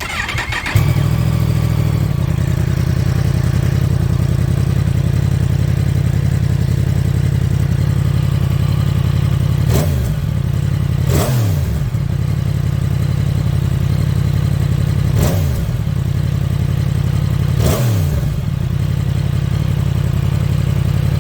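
2022 Yamaha MT-10's crossplane inline-four through the stock exhaust and catalytic converter, starting up and settling into a steady idle. It is blipped four times with short throttle revs that rise and fall back to idle.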